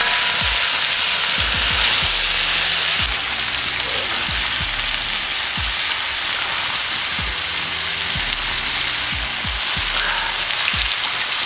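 Chicken pieces sizzling steadily as they fry in oil on a steel saj over a wood fire, with a few low thumps.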